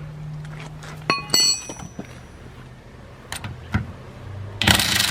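Steel lug wrench and socket working on a car's lug nut: two ringing metal clanks a little over a second in, a few light clicks, then a loud rasping scrape near the end. The scrape is the socket not biting on the nut.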